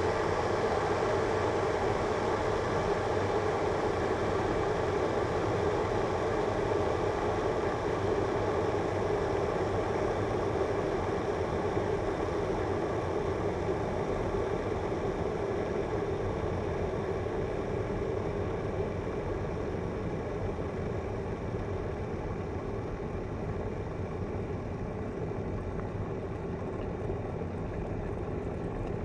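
Electric kettle boiling: a steady noise that eases slightly over the last third.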